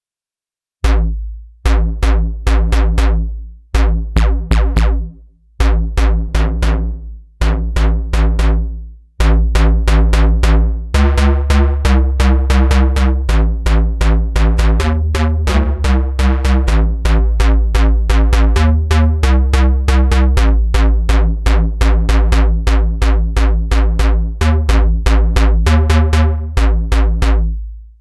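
ReFX Nexus 4 software synthesizer playing its 'Jun mono Bass' preset: a deep electronic bass line of short notes with sharp, clicky attacks. A few separate phrases come with short gaps for the first nine seconds or so, then a continuous run of rapid repeated notes follows, shifting pitch several times before stopping near the end.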